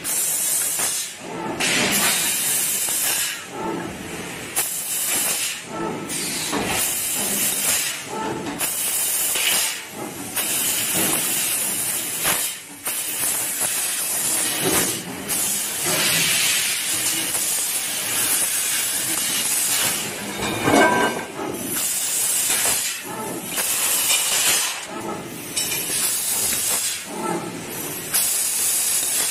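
Golden Laser P2060A 1000 W fiber laser tube cutter cutting metal tube: a loud, steady hiss of assist gas from the cutting head, broken by short pauses every second or so between cuts, with a brief louder burst about two-thirds of the way in.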